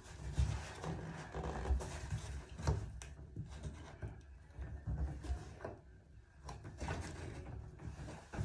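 Light knocks, clicks and rubbing of small faucet parts being handled and fitted into a Delta ball-type shower valve, with an uneven low rumble of handling.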